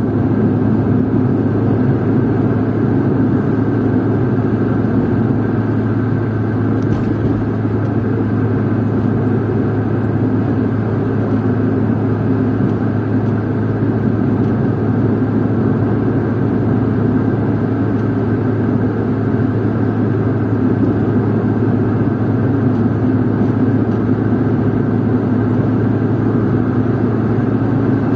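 Steady drone of a car on the move, heard from inside the cabin: a constant low engine hum under tyre and road noise, with no change in pace.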